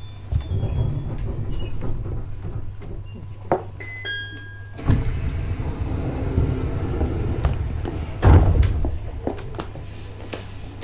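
Inside a JR East E721-series electric train car, over a steady low hum from the car's equipment: a short two-note chime, then the sliding passenger doors moving, with a loud thud about eight seconds in.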